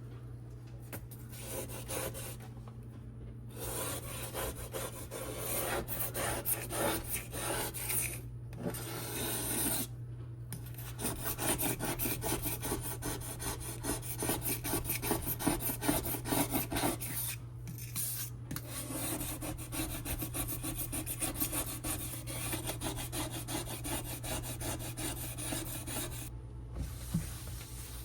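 Rapid back-and-forth scrubbing or wiping of a hard surface, in spells broken by short pauses, over a steady low hum.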